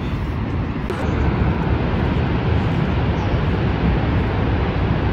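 Niagara's American Falls rushing steadily, with wind rumbling on the microphone; the sound gets louder about a second in.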